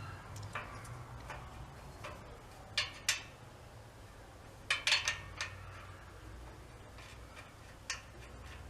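Scattered light clicks and taps, with a quick cluster of them about five seconds in, over a low steady hum.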